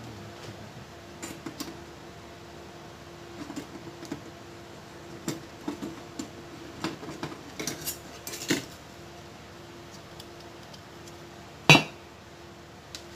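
Screwdriver and small metal parts clicking, clinking and scraping against a TV's sheet-metal back chassis as a main board is fitted, with scattered light knocks and one sharp, much louder knock near the end.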